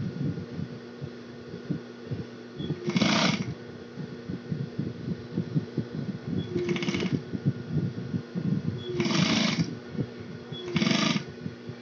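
Industrial sewing machine stitching bias binding onto a quilted potholder. The motor hums and the needle clicks rapidly throughout, with four short, louder bursts of running as the fabric is fed around the curve.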